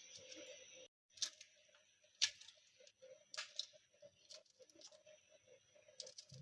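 A few faint, sharp taps, roughly one a second, over a faint steady hum.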